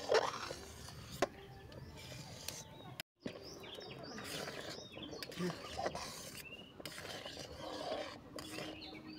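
Metal spatula clinking and scraping against a metal kadai as simmering milk kheer is stirred, with sharp clinks at the start and about a second in. The sound cuts out briefly about three seconds in.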